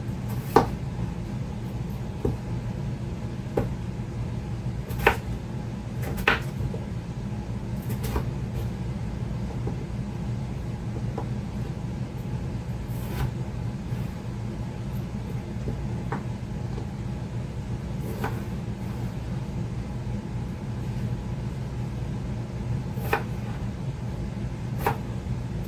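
Kitchen knife dicing raw potatoes on a cutting board: sharp knocks of the blade on the board, irregular and a second or more apart. A steady low hum runs underneath.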